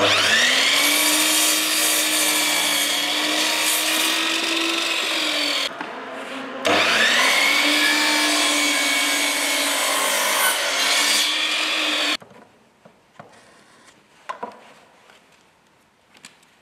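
Bosch mitre saw's motor spinning up with a rising whine and its blade cutting through wooden boards, in two runs, the first easing off about six seconds in and the second cutting off sharply about twelve seconds in. A few faint knocks follow.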